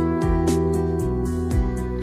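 Background music: a plucked guitar melody with sliding notes over a steady bass.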